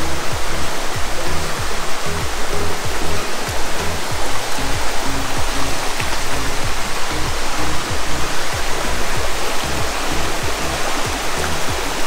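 Steady rush of Bridal Veil Falls, a 55-metre waterfall, with background music and its low, repeating bass line mixed in beneath.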